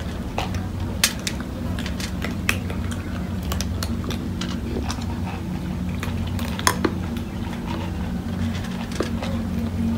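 Several cats eating dry kibble from a metal tray: scattered crunching and sharp clicks of kibble against the metal, the loudest about a second in and near seven seconds in, over a steady low hum.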